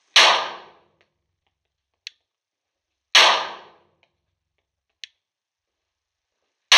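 Three shots from a Glock 21 .45 ACP pistol, about three seconds apart, each ringing out briefly in the enclosed indoor range. A faint click comes between each pair of shots.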